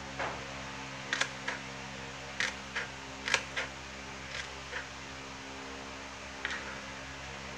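Kitchen knife slicing a red onion on a plastic cutting board: about a dozen sharp, irregular taps as the blade cuts through and strikes the board, over a steady low hum.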